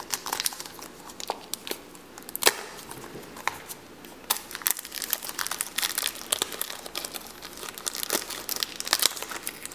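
Plastic packaging crinkling and crackling as it is handled and pulled open, with irregular sharp crackles and a few louder snaps.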